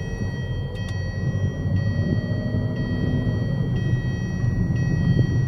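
2011 Hyundai Sonata heard from inside the cabin while driving: a steady low engine and road rumble that grows slightly louder, with a set of steady high tones that change about once a second. The engine has been damaged since an oil pump replacement, and the owner says it still stalls and makes a strange noise.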